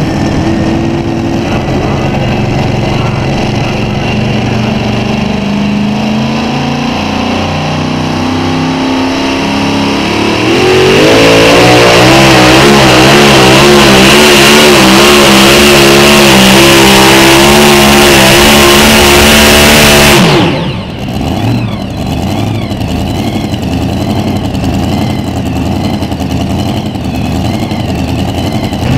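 Two-wheel-drive pulling truck's engine running at the starting line, then revving up and held wide open for a roughly ten-second pull. About two thirds of the way in the throttle is cut and the engine drops off sharply, leaving quieter engine noise idling on.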